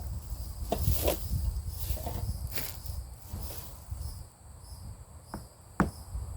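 Insects trilling steadily, with a low rumble and a few sharp clicks and knocks from hands handling food and containers, the sharpest near the end.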